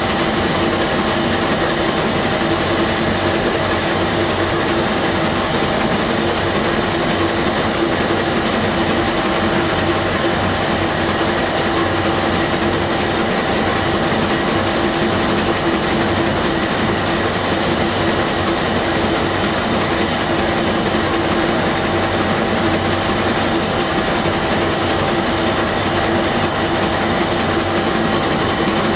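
Werkspoor 2100 hp four-stroke inline marine diesel engine running steadily, heard up close beside its rocker arms and valve gear: a loud, even mechanical din with a few steady tones in it.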